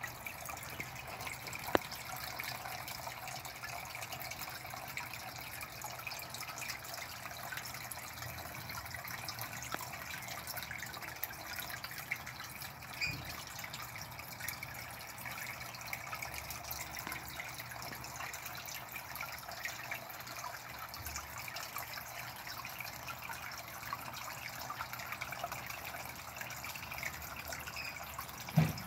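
Water steadily trickling and splashing into a fish pond, full of fine drips. A sharp click comes about two seconds in and a brief thump near the end.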